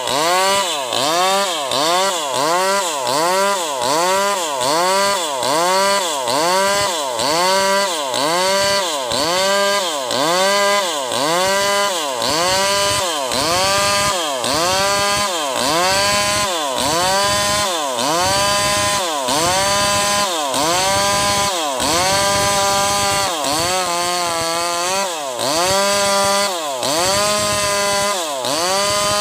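Bosco 5880 two-stroke chainsaw with a 24-inch bar ripping lengthwise along a sengon log. The engine revs rise and fall about once a second as the chain loads up in the wood and recovers, steadier for a moment about three-quarters of the way through.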